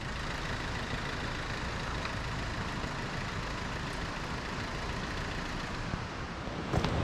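Steady rushing noise with no distinct tones or rhythm.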